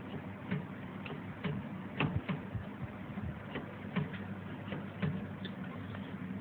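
Light ticking clicks from a brotherJet U7880 printer, about two a second and slightly uneven, over the steady low hum of the running machine.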